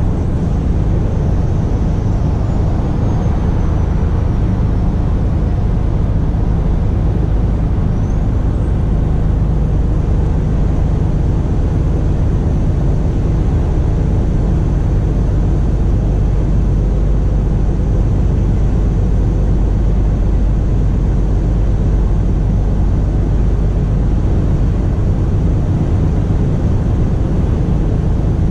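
Scania R450 truck's 13-litre six-cylinder diesel running steadily while driving, with road noise.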